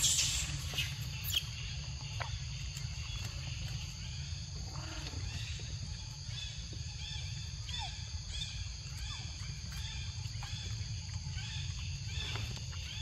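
Forest ambience: a steady high insect drone over a low steady rumble. From about halfway on come many short, repeated chirping calls. A brief sharp rustle-like burst sounds right at the start.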